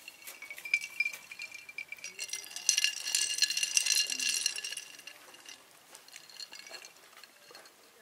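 Ice cubes clinking and rattling in a drinking glass as it is picked up and moved, loudest from about three to five seconds in. Fainter light clicks follow.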